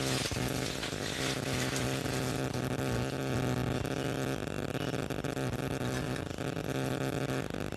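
A steady mechanical hum with an even pitch, like a small motor running.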